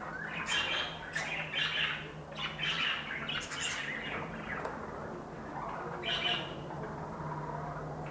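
A room of pet birds, cockatiels among them, chirping and squawking in quick overlapping calls, busiest in the first half and thinning out after, over a low steady hum.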